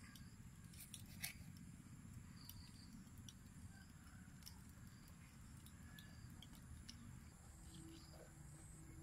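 Near silence with faint, scattered clicks and small cutting sounds of a knife working through a water snake's flesh over a steel basin, the clearest about a second in.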